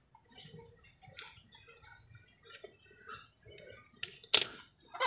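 Faint rustling and small clicks of hands handling a rubber diving mask, then a sharp metallic clack about four seconds in and a smaller one near the end, as a pair of steel scissors is picked up off the concrete floor.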